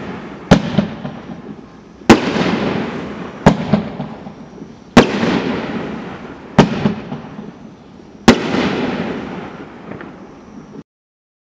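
Mad Ox Watermelon Moonshine (OX506) fireworks cake firing: six sharp bangs about one and a half seconds apart, each dying away over a second or so. The sound cuts off abruptly near the end.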